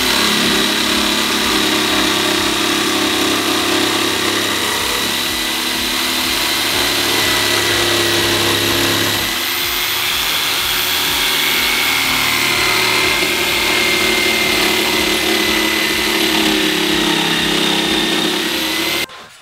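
Corded electric jigsaw sawing through a wooden worktop, its motor running with a steady whine while the blade cuts out the opening for a cooking hob. It stops abruptly just before the end.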